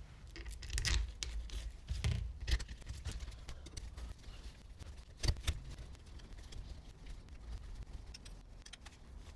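Scattered metallic clicks and knocks from a Nissin brake caliper's halves being put together and its joining bolts fitted and turned by hand with a hand tool; the sharpest knock comes about five seconds in.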